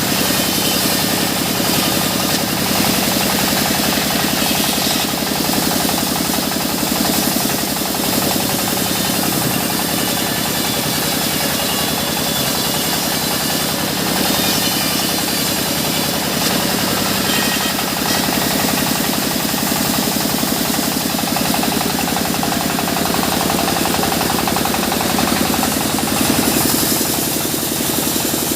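Sawmill machinery running steadily on an engine, with a fast, even knocking beat.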